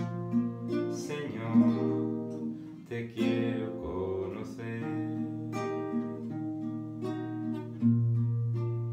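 Acoustic guitar strumming chords in an instrumental break between verses of a sung worship song.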